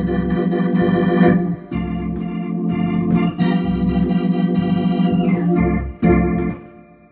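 Hammond SK organ playing sustained chords over low bass notes, the chords changing every second or two. The upper notes slide briefly downward about five seconds in, then one last chord sounds and fades away near the end.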